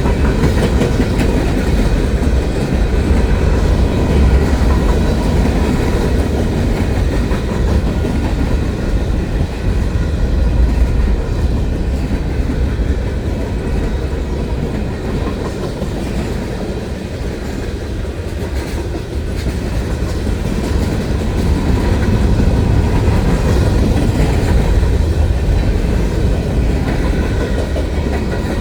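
Train cars rolling past with a steady rumble and the clickety-clack of wheels over the rail joints, easing a little about two-thirds of the way through.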